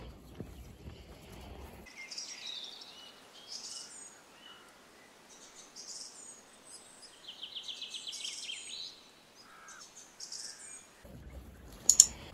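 Assorted birds chirping and calling, with a rapid trill about two-thirds of the way through. A low rushing noise fills the first two seconds and returns near the end, where a single sharp click is the loudest sound.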